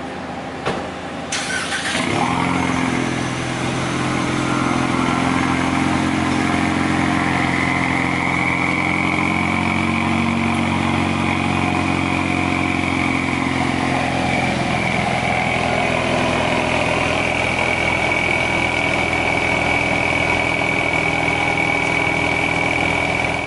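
A 2020 Ford Mustang EcoBoost's 2.3 L turbocharged four-cylinder starts about two seconds in and settles into a steady idle through its exhaust, with a thin high whine over it. The mufflers are deleted and the resonators are still in place, and the exhaust is only a little louder than stock.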